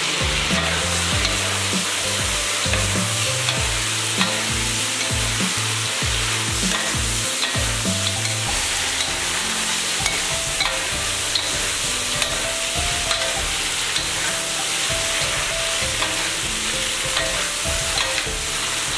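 Duck pieces sizzling in hot oil in a wok, stirred and tossed with a spatula, with scattered light clicks and scrapes of the spatula against the wok.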